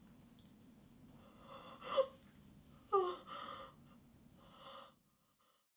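A woman gasping and whimpering in shock behind her hand. A sharp gasp comes about two seconds in, then a short cry falling in pitch at three seconds, then a shaky breath.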